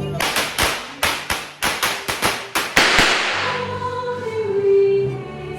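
Firecrackers going off behind the camera in a rapid, irregular string of sharp bangs, about four or five a second, ending in a louder crackling burst about three seconds in. Background music with sustained, choir-like tones follows.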